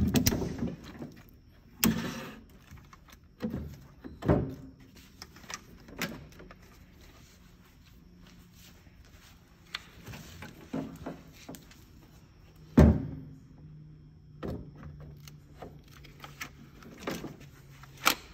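A heavy 12-volt lead-acid battery being set down and shoved into its slot in a metal battery bay: irregular thuds and knocks, with a hard knock about two-thirds of the way through.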